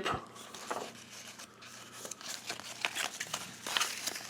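Paper sticker sheets and packaging being handled, crinkling and rustling in irregular small crackles that grow busier in the second half.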